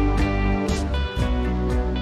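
Instrumental background music with guitar over a bass line and a steady beat.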